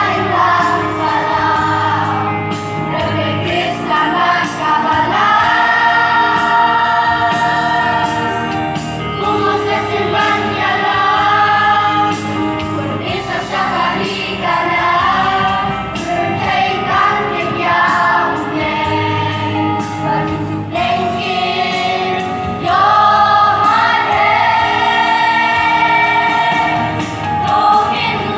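A choir singing a Khasi gospel hymn in several voice parts. Long held notes run in phrases with short breaks between them.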